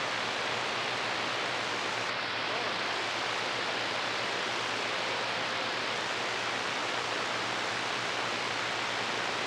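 CB radio receiver putting out a steady rush of static hiss on an open channel, with a faint low hum underneath.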